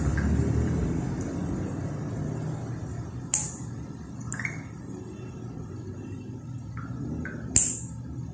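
A stainless nail nipper snipping at the edge of a toenail gives two sharp clicks, one about three seconds in and one near the end, with a few fainter ticks between them over a low rumble.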